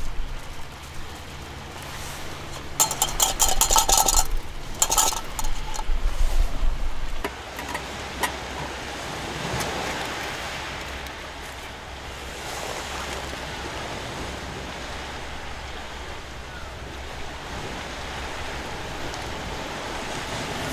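Steady wash of surf and wind on a seashore. From about three to five seconds in comes a short run of sharp knocks with a ringing tone, like small metal gear being handled.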